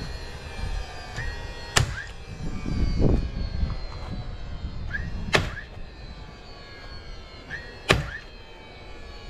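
Cordless DeWalt battery nailer firing three nails into a plywood panel, each shot a sharp crack, the first about two seconds in and the others a few seconds apart, with a short rising whir of the tool's motor before each. A low rumble swells and fades around the middle.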